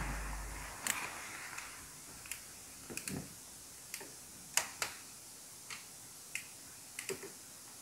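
Scattered sharp clicks and taps of hand tools and engine parts being handled during timing-chain assembly on a VW 1.4 TSI engine, about a dozen at irregular intervals.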